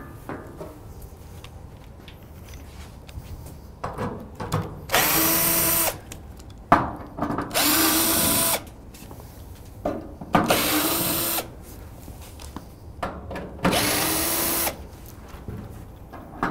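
Cordless drill/driver with a Torx T30 bit backing out the side-panel fasteners of a steel equipment cabinet. It makes four runs of about a second each, roughly three seconds apart; each comes up to speed at once, holds a steady pitch and stops sharply, with short knocks between runs.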